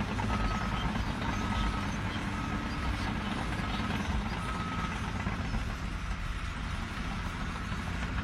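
Heavy vehicle engine running steadily while its reversing alarm beeps about once a second; the beeping stops about five seconds in and the engine keeps running.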